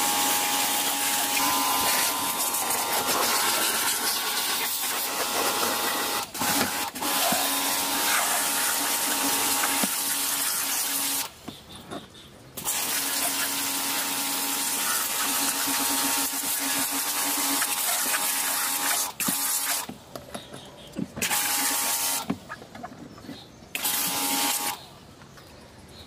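Small electric pressure washer running, its motor humming under the hiss of the water jet hitting the inside of a plastic washing-machine tub. The spray stops briefly three times in the second half as the trigger is let go, then stops near the end.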